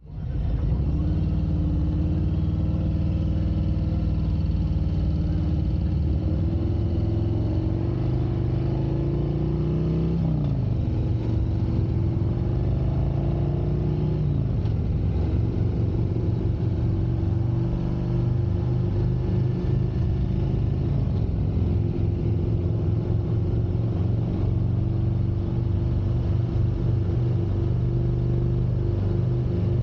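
2021 Harley-Davidson Street Glide Special's Milwaukee-Eight 114 V-twin pulling under way. The engine pitch climbs for about ten seconds, falls at a gear change, climbs again for a few seconds, falls at a second shift, then holds steady at cruising speed.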